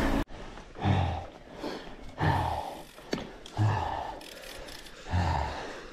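A person breathing hard, with four heavy exhales about every second and a half, as after exertion on the bike. A loud rushing noise cuts off abruptly at the very start.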